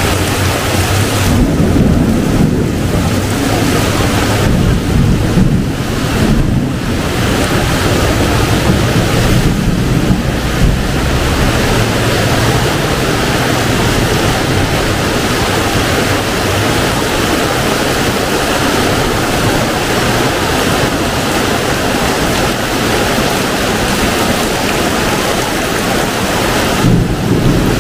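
Heavy rain pouring steadily, with wind buffeting the microphone in a low rumble.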